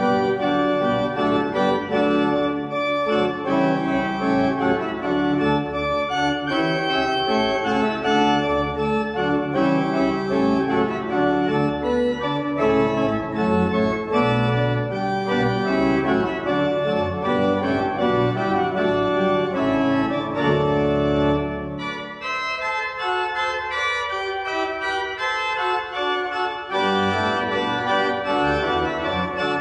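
Pipe organ playing a full, sustained piece with deep pedal bass. A little over two-thirds of the way through, the low bass notes drop out and the sound thins for about four seconds before the bass comes back in.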